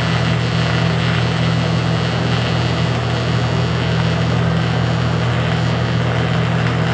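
TIG welding arc on a metal tube: a steady, unbroken low electrical buzz with a hiss over it.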